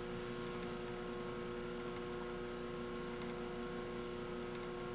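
Steady electrical mains hum, a few constant tones over a faint hiss, with no other sound.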